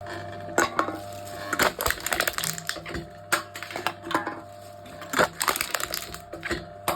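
Aluminium cans being crushed by a machine: a series of sharp crunches and crackles of thin metal buckling and folding, coming irregularly about once or twice a second, over a steady hum.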